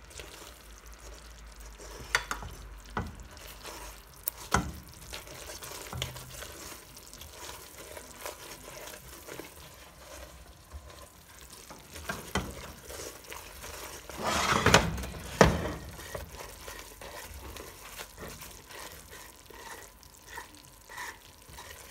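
Hot melted-sugar syrup sizzling and bubbling as a lump of butter melts into it, while a silicone spatula stirs and scrapes the pot. A few sharp knocks of the utensils against the pot, the loudest a short cluster about fifteen seconds in.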